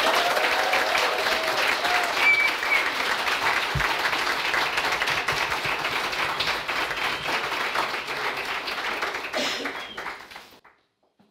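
An audience applauding, with a few voices calling out among the clapping; it dies away about ten seconds in.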